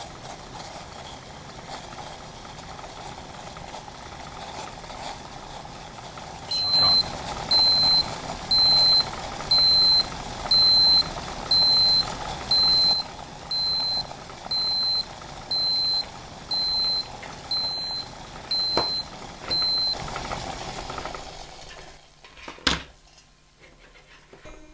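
Water at a full boil, a steady rushing bubbling. About a quarter of the way in, a high electronic beep starts sounding roughly once a second, fourteen times, as the water reaches about 97°C. Near the end the boiling dies down and there is one sharp click.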